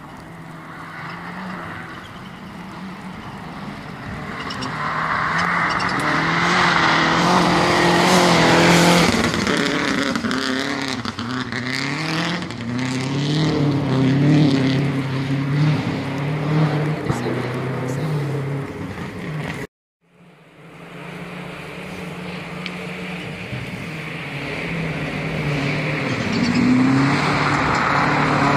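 Subaru WRX STI rally car's boxer engine at full throttle on a gravel stage, its pitch rising and dropping again and again through gear changes as it approaches and passes. The sound cuts out briefly about two-thirds through, then the car is heard again, growing louder as it comes closer.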